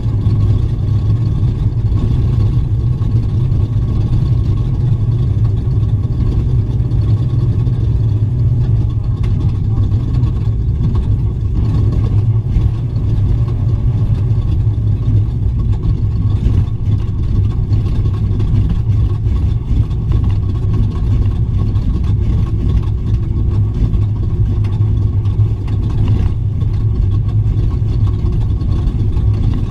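Off-road race truck heard from on board at speed: the engine and drivetrain make a loud, steady low drone, mixed with road and chassis noise.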